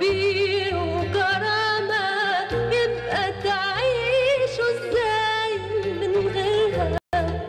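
A woman singing a slow, ornamented Arabic elegy over instrumental accompaniment with a steady bass line. The sound cuts out for an instant near the end.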